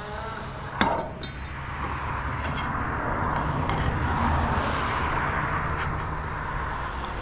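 A few sharp knocks, the loudest about a second in, over a steady low rumble that swells in the middle and eases off again.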